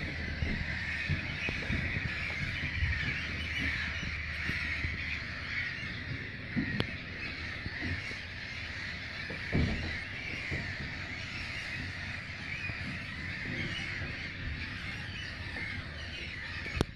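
A breeding colony of black-headed gulls calling all at once, a dense, unbroken chorus of overlapping cries, with wind buffeting the microphone underneath.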